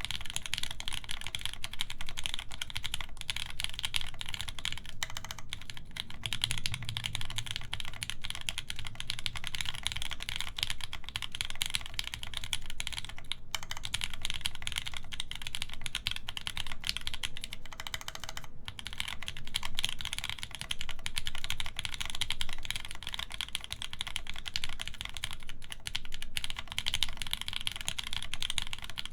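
Continuous fast typing on a Pikatea Funky60 mechanical keyboard with lubed linear Gateron Yellow switches in milky housings, an FR4 plate and GMK Birch keycaps. A dense stream of keystroke clacks, with brief pauses a few times.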